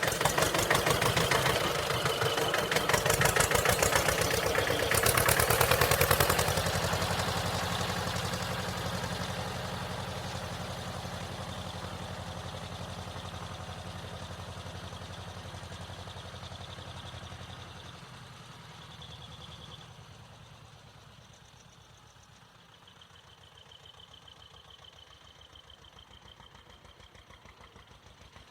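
Tractor engine running with a rapid, even chug as the tractor drives away. It is loudest over the first few seconds, then fades steadily into the distance.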